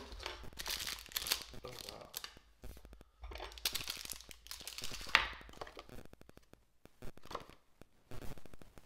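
Clear plastic bag crinkling and tearing as it is handled and opened, with a plastic paint palette inside. It comes in irregular bursts of rustling, with a busy stretch in the first two seconds and another from about three to five seconds, then fainter handling.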